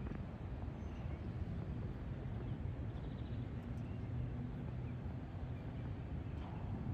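Steady low outdoor rumble with a faint low hum in the middle and a few faint bird chirps.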